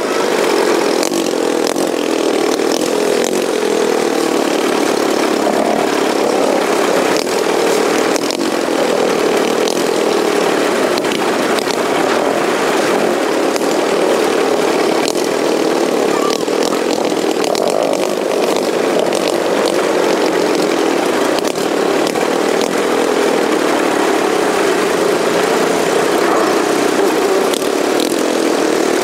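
Racing lawnmower's engine running steadily, heard onboard, its note rising and falling a little with the throttle, with scattered small clicks from the rough road.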